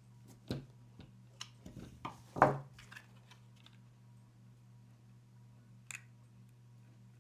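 Small parts being handled and fitted on a work surface: a run of light clicks and taps, the loudest a knock about two and a half seconds in, then a single click near six seconds, over a steady low hum.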